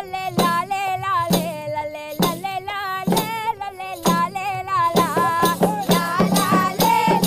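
Background music: a wavering melody over a regular percussion beat, which gets much faster about five seconds in.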